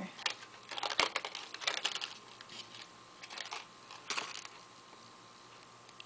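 Light clicks and taps of small metal charms and a swivel clasp being handled and fitted together, in short irregular clusters that stop about four and a half seconds in.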